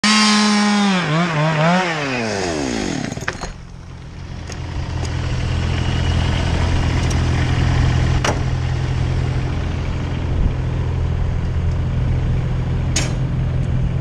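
A chainsaw engine wavers in pitch, then winds down and stops about three seconds in. A steady low engine hum then builds and holds, with a few scattered sharp clicks.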